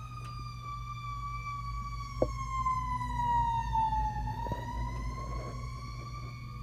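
Fire engine siren on a slow wail: one long tone that falls in pitch for about four seconds, then rises again.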